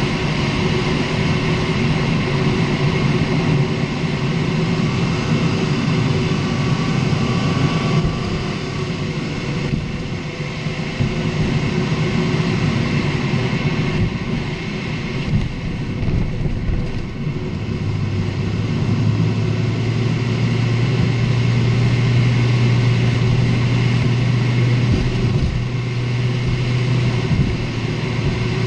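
Lexus IS250 on the move: steady road and running noise, with a low drone that comes in about two-thirds of the way through and holds until near the end.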